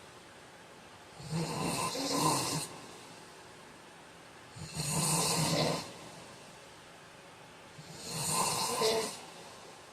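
A heavyset man snoring in his sleep: three loud snores, evenly spaced about three and a half seconds apart, with quiet breathing between them.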